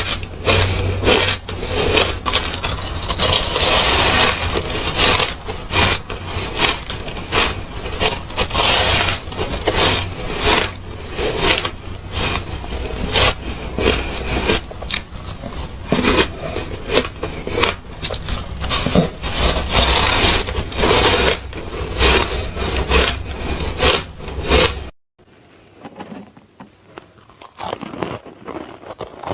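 Close-miked crunching of ice being bitten and chewed: a loud, dense run of crisp crunches. About 25 seconds in it cuts off suddenly to quieter, sparser crunching.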